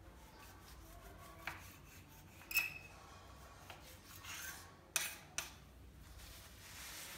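Kitchen knife cutting through a stack of thin homemade spring roll wrappers: soft dry rasping strokes of the blade through the sheets, with a few sharp clicks, the loudest about two and a half seconds in.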